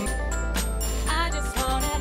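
Hip hop backing music with no rapping: a steady bass line under high sustained synth tones, with a rising pitched line about a second in.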